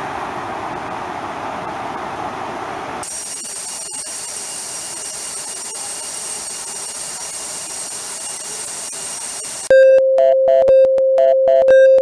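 Rushing water of a waterfall, a steady roar of falling water. About three seconds in it cuts to a quieter flow of water over rock with a faint steady high whine, and near the end a loud electronic tune of pure beeping tones breaks in.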